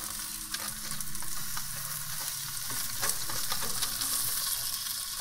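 Tilapia fillets sizzling on aluminium foil on a hot grill, a steady crackling hiss, with a few light clicks of a metal spatula being worked under the fish to flip it.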